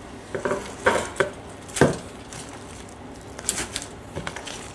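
Metal cooking pans and lids knocking and clinking as they are set down and shuffled on a stovetop: a handful of separate knocks, the loudest a little under two seconds in.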